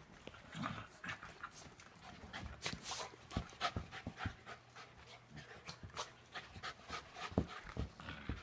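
Dogs panting hard and scuffling while they play-fight, with many short, sharp sounds of mouthing and bumping.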